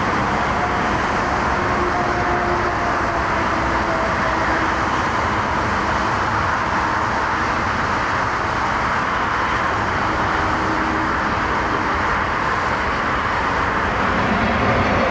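Steady roar of a landing wide-body twin-jet airliner mixed with road traffic noise, with faint tones that slowly fall in pitch. It grows a little louder near the end.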